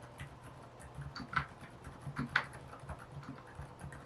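Keychron K10 Pro mechanical keyboard with low-noise K Pro brown (linear) switches being typed on at an easy, uneven pace, as in everyday document writing or chatting. The keystrokes are quiet and muted, with a couple of slightly firmer presses about one and a half and two and a half seconds in.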